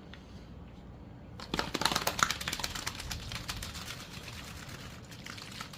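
Hard-boiled egg shaken in a cup with a little water, its shell clicking and rattling rapidly against the cup to crack it for peeling. The rattling starts about a second and a half in, is loudest just after, and tapers off near the end.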